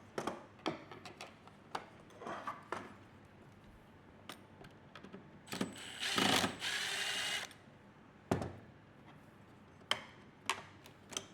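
Hard plastic parts of a Zodiac MX8 suction pool cleaner being pried apart with a screwdriver: scattered clicks and knocks, with a louder scraping rasp for about two seconds from five and a half seconds in.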